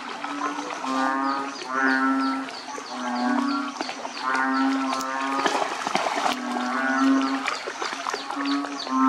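A chorus of frogs calling after rain: low, drawn-out calls about half a second long, repeating one after another and overlapping, with quick high chirps repeating about three times a second above them.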